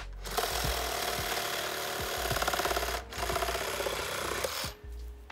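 Handheld power saw cutting into a dead tree trunk, running hard in two stretches with a brief stop about three seconds in.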